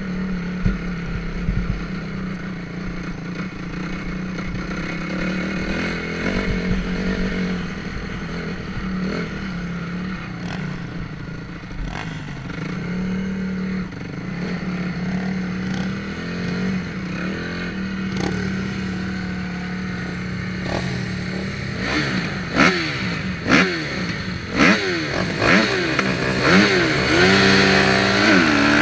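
Honda CRF250R dirt bike's four-stroke single-cylinder engine heard from on the bike, running steadily at low revs, then revving up and down hard again and again over the last several seconds, with clattering knocks from the bike over rough ground.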